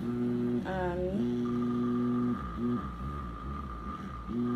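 Small app-controlled vibrator's motor buzzing in a programmed pattern: a steady hum, then short on-off pulses partway through, then steady again near the end.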